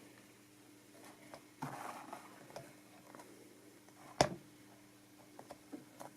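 Quiet handling of an XLR cable plug at a cable tester's socket: a brief rustle about two seconds in, then one sharp click about four seconds in as the connector latches home.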